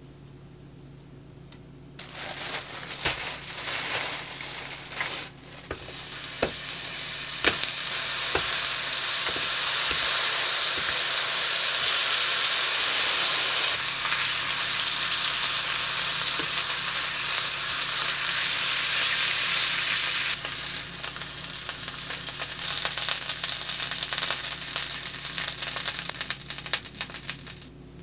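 Frozen thin-sliced beef brisket (chadolbagi) frying in a nonstick pan and turned with tongs. After a quiet start, scattered clicks and crackles build within a few seconds into a steady loud sizzle, which cuts off suddenly near the end.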